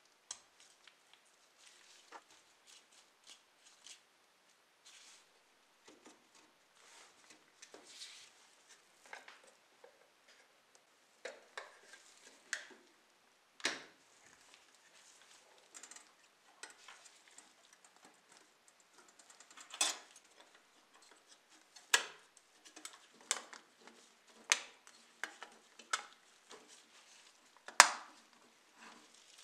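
Small plastic and metal parts of a diecast model car clicking and tapping as they are fitted together by hand. Irregular sharp clicks and knocks, a few louder snaps in the second half.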